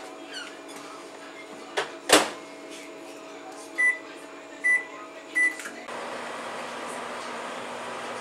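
Microwave oven door shut with a click and a loud thud about two seconds in, then three short keypad beeps, and then the oven starts running with a steady hum.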